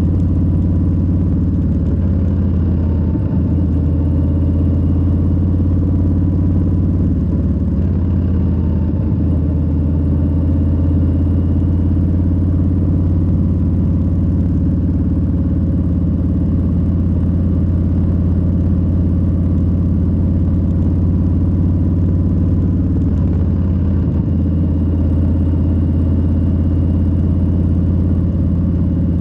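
2022 Harley-Davidson Low Rider S's Milwaukee-Eight 117 V-twin running steadily under way, with a few brief dips in its note.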